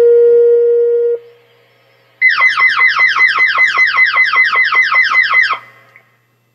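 Fire department radio dispatch alert tones. A steady tone cuts off about a second in. After a short gap comes a rapid repeating falling chirp, about five a second, lasting roughly three and a half seconds.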